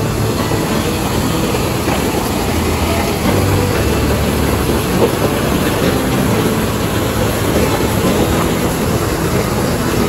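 Steady roar of white water: a fast mountain river rushing over boulders and pouring over a broad weir waterfall.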